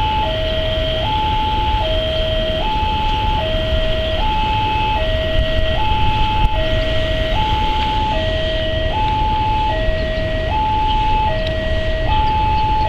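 Railway level-crossing warning alarm sounding a steady two-tone high-low 'teng-tong', each tone held just under a second, the signal that a train is approaching and the crossing is closed. A steady low rumble runs underneath.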